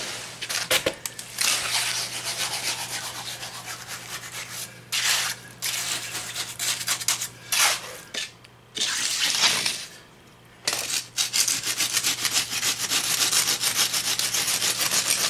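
A hand trowel and a metal level scraping back and forth over wet concrete in a wooden form as the surface is smoothed and screeded. The strokes come in long runs of quick rubbing, broken by a few short pauses.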